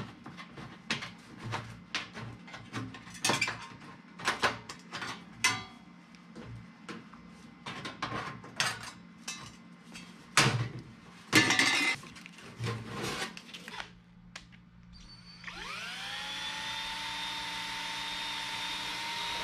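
Tin snips cutting sheet-metal duct pipe: a run of irregular crisp snips and metallic crunches. About 15 seconds in, a drill motor spins up with a rising whine and then runs steadily, ready to pre-drill the booster housing.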